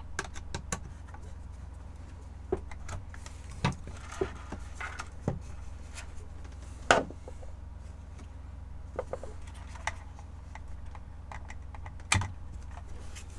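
Irregular small clicks and knocks of a replacement speaker and the radio's plastic housing being handled and fitted together, over a steady low hum. Two sharper knocks stand out, about 7 seconds in and near the end.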